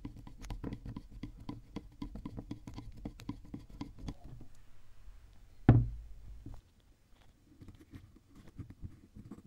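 Steady clicking, about five a second, of a flat screwdriver turning a slotted screw into the metal crank arm of a hand drill. A little before six seconds in there is one loud knock with a low thud, then fainter taps and scrapes.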